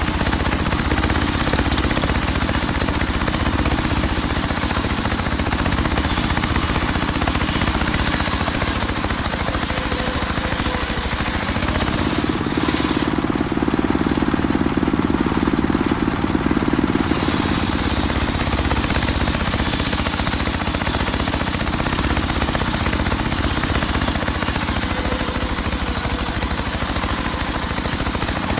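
Homemade circular sawmill running steadily and ripping a mahogany log, a dense, even machine noise. From about twelve seconds in, for some five seconds, the sound turns duller with a stronger low hum, then returns to its earlier character.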